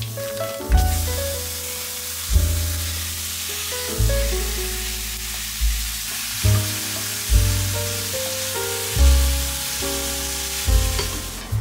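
Raw ground beef sizzling in a hot cast-iron skillet as it is broken up and stirred with a wooden spoon, a steady hiss under background music with a prominent bass line.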